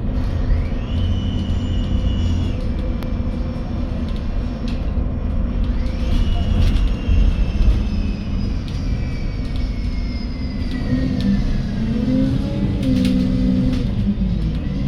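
Inside a MAN Lion's City 12 EfficientHybrid CNG city bus under way: the engine and drivetrain run steadily. A high whine rises quickly twice as the bus pulls, once near the start and again about six seconds in, and the second whine slowly falls away over several seconds.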